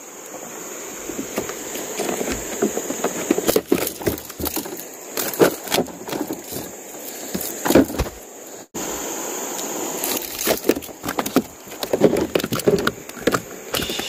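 Irregular knocking and clattering, like hard objects or wood being handled, over a steady high-pitched insect drone. The sound cuts out sharply for a moment about two-thirds of the way through.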